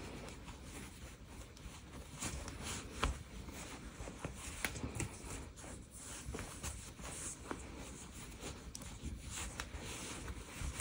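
Faint rustling and rubbing of giant chunky yarn as bare hands pull loops through the stitches, with scattered light ticks.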